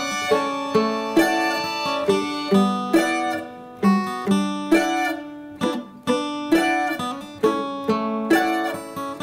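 Background music on a plucked string instrument: a slow melody of single picked notes, about two a second, each ringing out and dying away.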